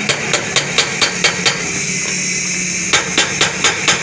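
Hammer blows on a metal tube drift held on a bearing in a motorbike wheel hub, driving the bearing into its seat: a quick run of about seven taps, a pause of about a second and a half, then five or six more.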